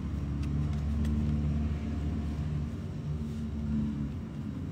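A low, steady motor rumble with a slightly wavering pitch, like an engine running. A couple of faint clicks come about half a second and a second in.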